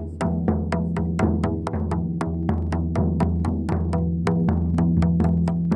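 Frame drums beaten in a fast, steady rhythm, about four strikes a second, over a steady low droning tone.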